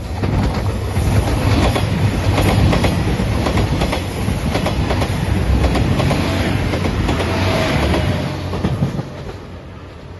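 JR Shikoku 2700 series diesel limited express train passing close by, its wheels clattering over the rail joints. The sound builds in the first second and falls away about nine seconds in.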